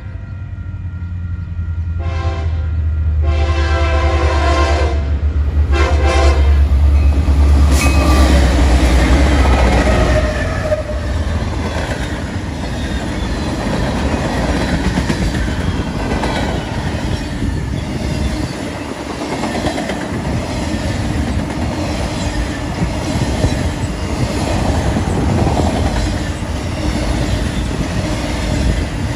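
Diesel locomotive passing close by, sounding its horn in three blasts in the first six seconds, the last one short. The engine's heavy rumble fades out about ten seconds in, and the train's cars then roll past with a rhythmic clickety-clack of wheels over the rail joints.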